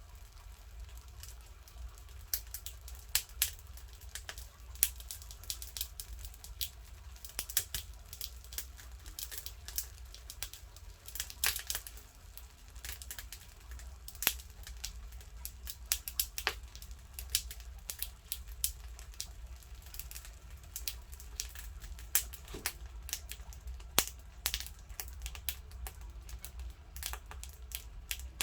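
Wood-burning stove being fed and lit: many irregular sharp crackles and snaps of kindling and firewood, over a low steady rumble.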